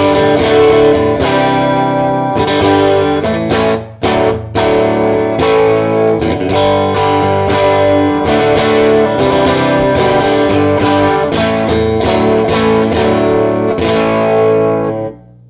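Electric guitar with a single underwound P90-style pickup, played through a 30-watt handwired all-tube amp (Deluxe Amplification Anvil) with a 12-inch speaker. Full chords are strummed with frequent pick strokes, with a short break about four seconds in, and the playing stops just before the end.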